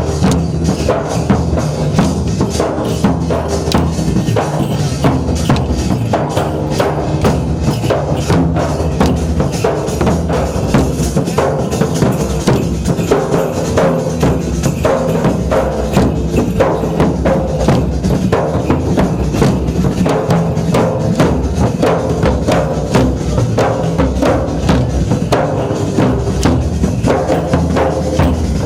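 Gair folk dance music: a dhol drum keeping a steady beat, with repeated clacks of the dancers' wooden sticks struck together.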